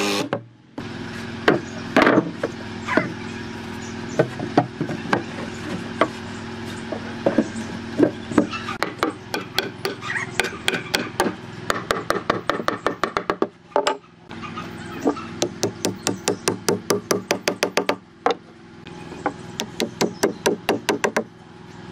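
Hammer blows on wood, driving a wooden peg into a through-tenon joint of a wooden table base: single knocks early on, then runs of quick blows at about four a second, broken by a few short breaks.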